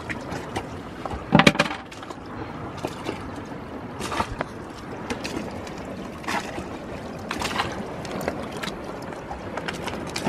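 Scissors snipping wet hair in short, scattered snips, with one louder knock about a second and a half in, over a steady background hiss.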